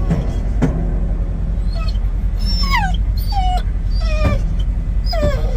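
Pit bull whining in a series of high cries, each falling in pitch, about four or five from around two seconds in, over a steady low rumble.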